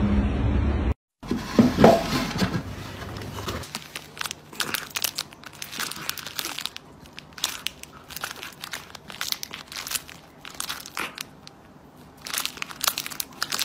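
A cat biting and chewing a small crinkly plastic toy held in its paws, making irregular crinkling and crackling. It is preceded in the first second by a low steady rumble that cuts off abruptly.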